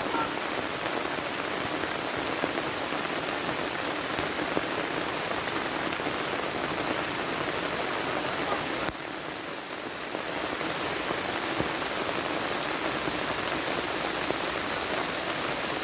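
Steady rushing water noise of monsoon rain or swollen streams, even and unbroken. It dips sharply for a moment about nine seconds in, then returns at the same level.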